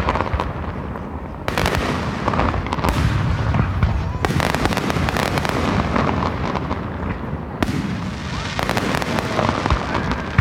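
Fireworks display: aerial shells bursting in quick succession over a continuous low rumble. Three big reports come about 1.5, 4 and 8.5 seconds in, each followed by a rapid crackle of bursting stars.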